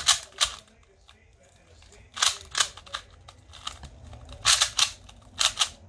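Plastic clicking of a Mofang MF2 2x2 speed cube being turned by hand: sharp, irregular clicks in short runs with pauses between them.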